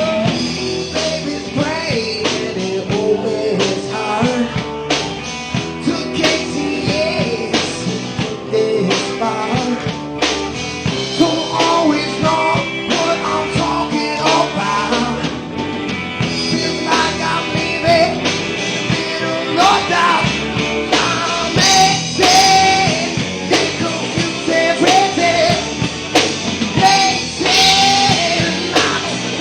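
Live rock band playing with electric guitar and a drum kit, a singer coming in partway through.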